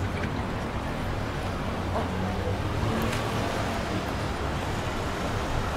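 City street traffic ambience: a steady low rumble of cars and engines on a wide road, with faint voices of passers-by mixed in.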